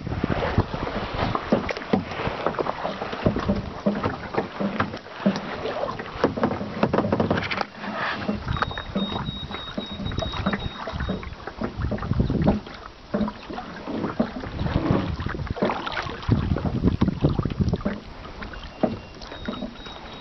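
Water splashing and lapping against a plastic kayak's hull as it is paddled across choppy lake water, in an uneven run of splashes and knocks.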